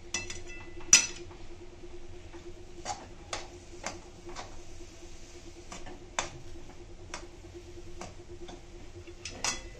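Perforated steel ladle knocking and scraping against an aluminium kadhai while stirring a thick cooked vegetable mixture: a string of irregular sharp taps, the loudest about a second in. A steady low hum runs underneath.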